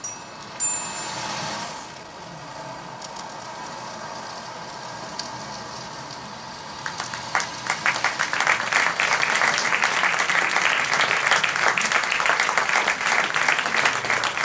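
The last notes of the piece, high chime-like tones, ring out and fade over the first two seconds. After a few seconds of near-quiet, the audience starts applauding about seven seconds in and keeps clapping steadily.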